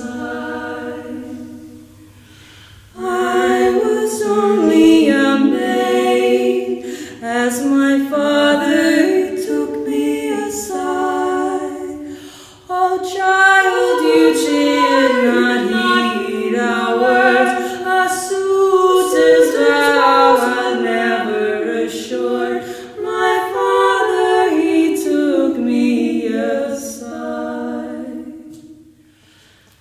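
Two women singing a cappella in close harmony, with no instruments. The singing breaks off briefly a couple of seconds in and fades near the end.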